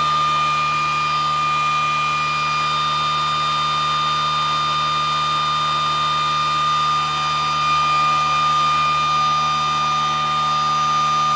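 Rebuilt pulse motor spinning at high speed with no load, running on both input battery banks. It makes a steady whine of several held tones over a low hum.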